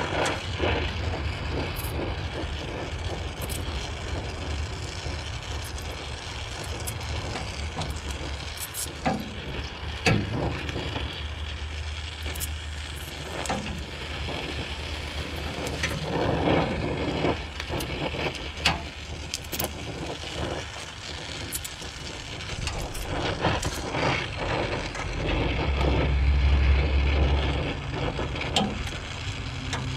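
Gas welding torch (oxy-acetylene) flame hissing steadily while it melts and welds sheet steel, with occasional sharp clicks.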